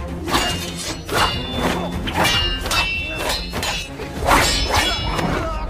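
Martial-arts film fight sound effects: a quick run of weapon strikes and swishes, about two a second, many with a short metallic ring, over a music score.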